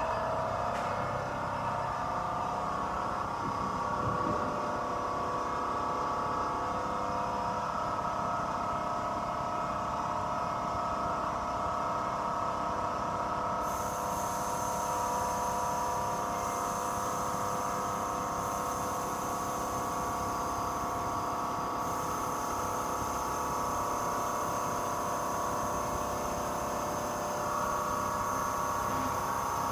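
Small air compressor running steadily, pumping up Firestone air-spring bags to level a pickup's rear under a heavy trailer tongue weight.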